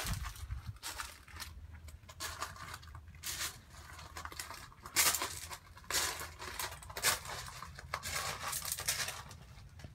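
Footsteps crunching on loose gravel at a slow walking pace, about one or two steps a second, over a low steady rumble.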